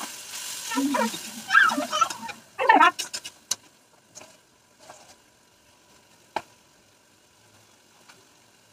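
A metal ladle stirs and scrapes a vegetable curry in a kadhai over the gas flame, with the food sizzling. About three seconds in, a few quick clinks are heard as the ladle is set down. After that only a faint sizzle remains, with one sharp knock a few seconds later.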